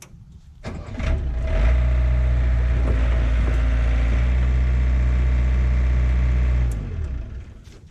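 Yanmar B50-1 mini excavator's diesel engine picking up revs about a second in and running steady under hydraulic load while the boom lifts the machine off the ground, then dropping back near the end.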